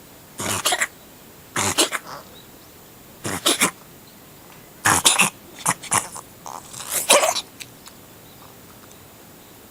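Siamese cat sneezing again and again with strange 'guhihi' sneezes, about six bouts of short bursts a second or so apart, coming quicker near the end.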